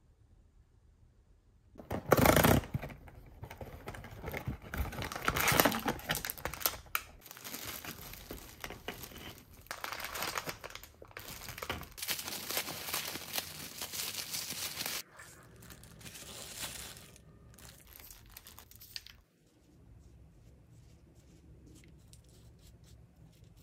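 Baked crackers being crushed by hand inside a clear plastic bag: crinkling plastic and crunching. It starts about two seconds in, is loudest for the next dozen seconds, and then dies down to softer rustling.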